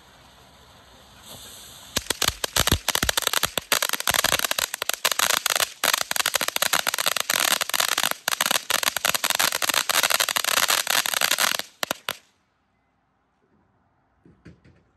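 Firework going off: a brief hiss, then about ten seconds of rapid, dense crackling pops that stop abruptly.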